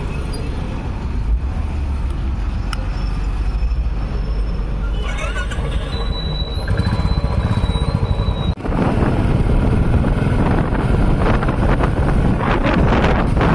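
Royal Enfield Classic 350 single-cylinder engine running while the bike stands, then, after a sudden break about two-thirds of the way through, the motorcycle riding along with wind rushing over the microphone.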